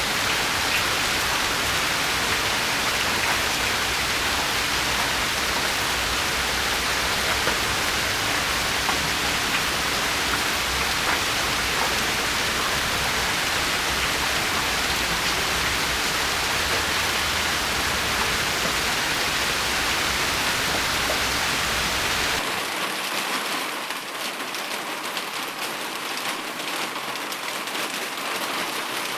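Steady rain falling, an even hiss of many drops with no thunder. About three-quarters of the way through it changes abruptly to a slightly quieter, crisper rain with more distinct individual drops and no low rumble.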